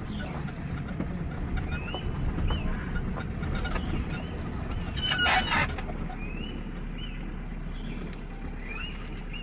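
Indian peafowl giving one loud, harsh call about five seconds in, among repeated short rising-and-falling chirps of a smaller bird.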